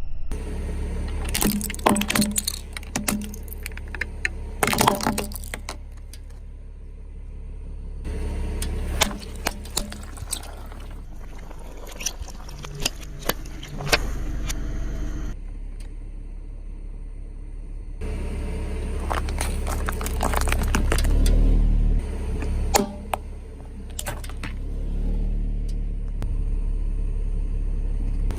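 A car tyre rolling slowly over brittle objects, crushing them with a string of sharp cracks, snaps and crunches over a low engine and tyre rumble.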